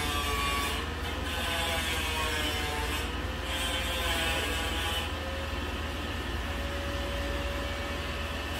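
Construction work in the adjoining room heard through the wall: a steady low rumble under a machine whine that wavers slowly in pitch, like a power tool running.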